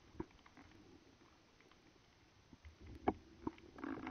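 Faint, muffled underwater sound: scattered small clicks, a sharper knock about three seconds in and a short louder burst just before the end.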